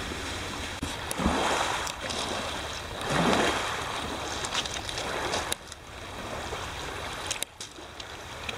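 Lake Superior waves washing onto a pebble beach, with two louder surges and wind on the microphone. About five and a half seconds in the sound drops quieter, with a few sharp clicks.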